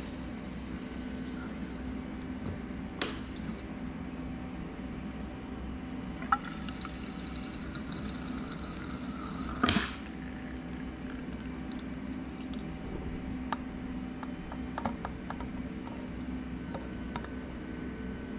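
Fuel pouring and gurgling from a gas can's flexible spout into a walk-behind mower's fuel tank, steady throughout. There is a sharp knock about three seconds in, a louder one about ten seconds in, and small ticks and clicks near the end.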